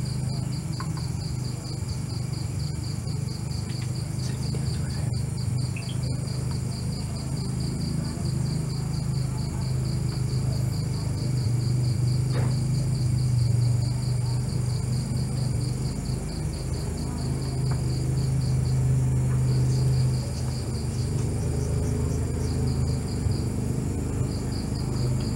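A night insect trilling in a fast, even pulse, breaking off twice near the end, over a steady low hum.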